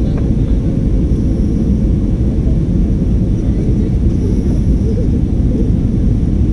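Steady rumble of an airliner's engines and rushing air, heard from inside the passenger cabin during the descent to land.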